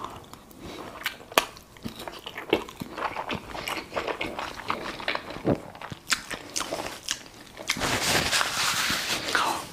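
Close-miked mouth sounds of a person biting and chewing whole-wheat bread with honey: scattered wet clicks and small crunches, growing into a denser stretch of chewing noise near the end.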